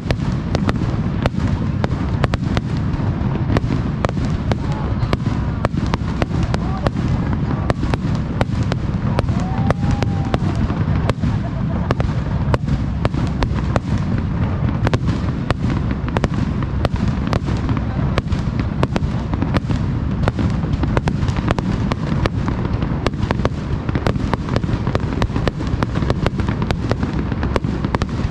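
Aerial fireworks bursting in rapid, unbroken succession: many sharp bangs and crackles every second over a continuous low rumble.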